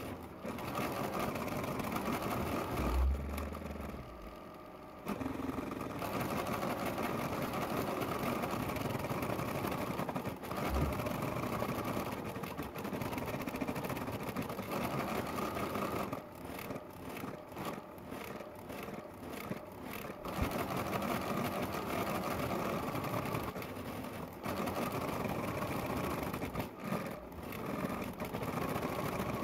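Computerized embroidery machine stitching out lettering: a steady, rapid needle run that goes quieter and uneven for a few seconds near the start and again past halfway, with a couple of brief low thumps.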